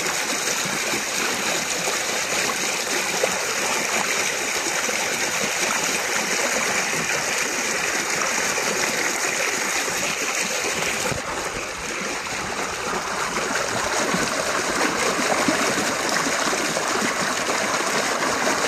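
Muddy rainwater rushing and splashing through a narrow earthen ditch in a steady, continuous rush. It dips briefly and turns a little duller about eleven seconds in, then picks up again.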